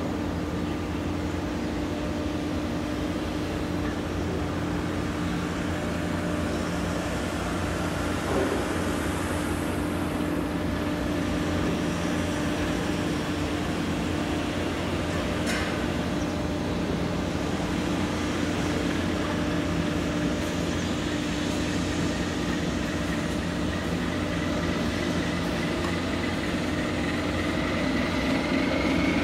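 Tugboat's diesel engines droning steadily with a low, even hum while it works a patrol vessel off the dock. A single knock comes about eight seconds in and a click about halfway, and near the end a whine starts to rise in pitch.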